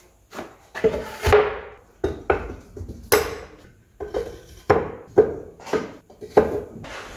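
A plywood tool holder knocking as it is hooked onto a wooden French cleat, then steel pry bars and a breaker bar clanking as they are dropped into its holes. There are about a dozen sharp knocks and clinks, each with a short metallic ring.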